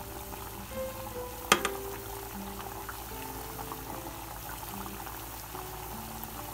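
Hot oil bubbling and crackling in a kadai as rounds of sweet mathri dough are slid in to deep-fry, with one sharp tap about one and a half seconds in. Soft background music plays underneath.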